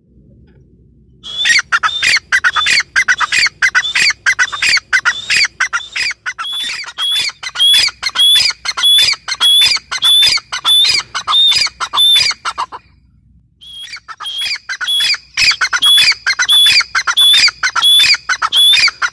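Gray francolin calling: a long run of loud, harsh notes repeated rapidly, starting about a second in, breaking off briefly about two-thirds through, then resuming.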